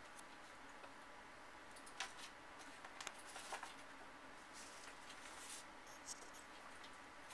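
Near silence: faint room tone with a few soft, scattered clicks and rustles.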